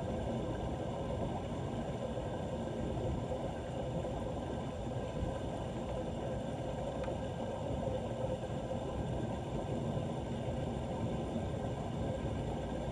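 Floodwater rushing steadily into a street drain, a constant low rushing noise without breaks.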